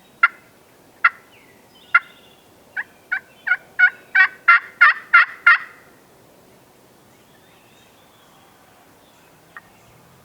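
Hen turkey yelping: three single yelps about a second apart, then a run of about nine quicker yelps that grow louder, with one faint yelp near the end.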